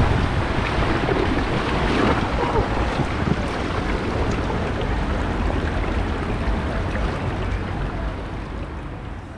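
Water rushing and splashing around an inflatable raft tube as it comes off a water slide into the splash pool, with wind rumbling on the microphone. The noise slowly dies down near the end as the tube drifts.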